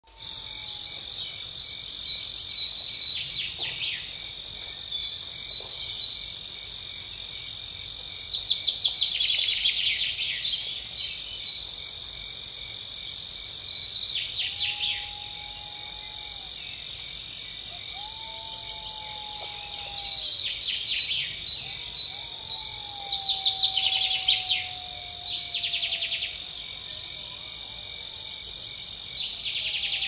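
A steady, high-pitched chorus of insects, with louder rapid pulsing trills breaking in every few seconds. Faint whistled bird calls come in the second half, one of them a long, slowly falling note.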